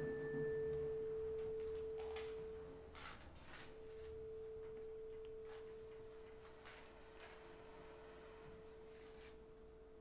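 Bowed vibraphone bar sounding one steady pure tone, which fades about three seconds in and is bowed again a moment later, then held. A fainter higher tone joins it, and there are a few soft taps.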